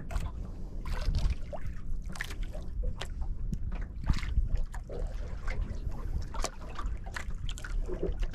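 Sea water lapping and splashing against a small boat's hull in short irregular slaps, over a steady low rumble.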